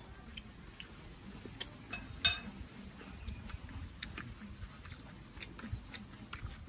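People eating: chewing, and a spoon scraping and clicking against a china plate, with one sharper clink a little over two seconds in.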